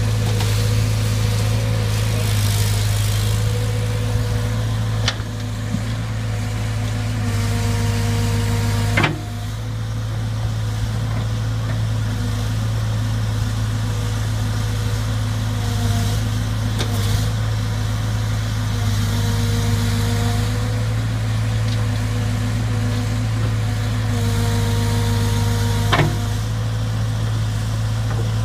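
Diesel powertrain of a 1979 JCB 3C backhoe loader running steadily, with a strong low drone and higher whining tones that come and go. Sharp clicks sound about five, nine and twenty-six seconds in.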